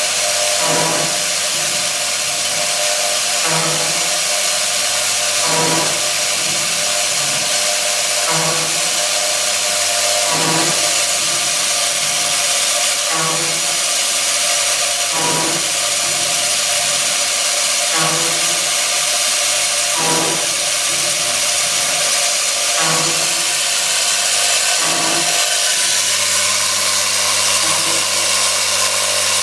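Automatic valve stem groove milling machine running: a steady high whine and hiss from the cutting heads. A short low knock comes back about every two and a half seconds as the machine repeats its cycle.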